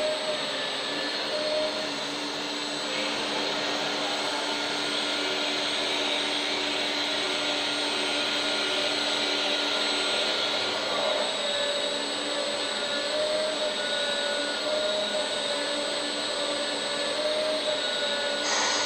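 Electric hydraulic pump of a 1/14-scale RC excavator running steadily, a whining hiss whose tone wavers and shifts slightly about halfway through as the machine works.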